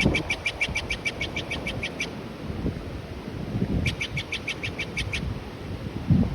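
Steller's jay giving two rapid series of harsh calls, about eight notes a second. The first series lasts about two seconds and the second starts about four seconds in.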